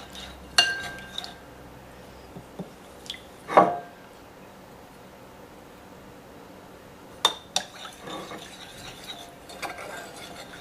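Metal spoon stirring a thin sauce in a ceramic bowl, clinking now and then against the bowl's side. The loudest clink comes a little over three seconds in and two more come close together about seven seconds in, with softer scrapes and taps between.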